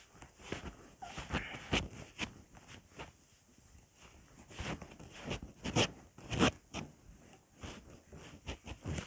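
A cloth wiping marker ink off a whiteboard in short, irregular rubbing strokes, with a couple of louder swipes a little past the middle.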